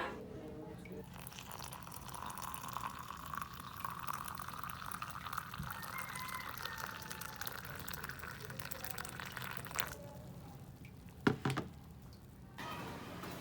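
Water pouring into a container for about nine seconds, the pitch of the stream rising as the vessel fills. It stops, and a couple of sharp knocks follow a second or so later.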